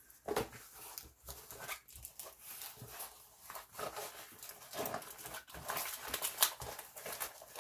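A diamond painting canvas being rolled up by hand: irregular rustling with short, soft knocks as it is handled.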